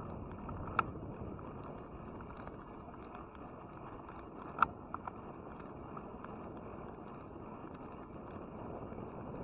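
Bicycle rolling along an asphalt road: a steady rush of tyre and wind noise. A few sharp clicks or knocks come from the bike, one near the start, the loudest about four and a half seconds in, with a smaller one just after it.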